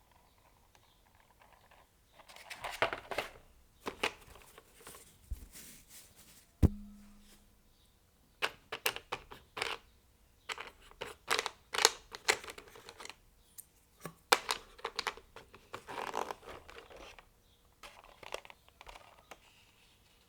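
Keycap kit packaging being handled: irregular rustling, scraping and small plastic clicks, with one sharp knock about six and a half seconds in.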